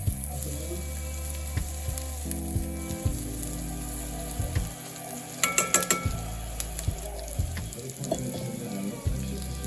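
Food frying and sizzling in a pan while it is stirred, with a cluster of clinks from the utensil against the pan about five to six seconds in.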